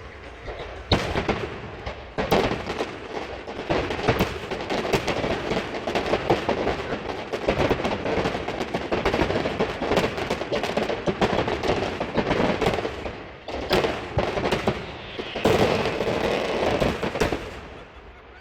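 Fireworks display: a rapid, near-continuous barrage of bangs and crackles with a brief lull partway through, dying away near the end.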